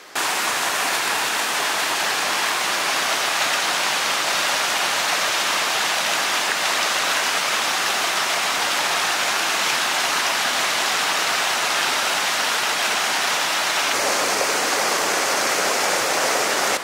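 A steady, even rush like flowing water, which starts and stops abruptly and changes slightly in tone about 14 seconds in.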